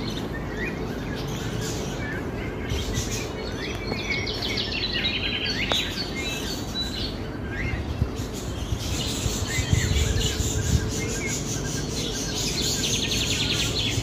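A chorus of birds chirping and trilling, with many short overlapping calls and fast trilling runs, over a steady low background hum.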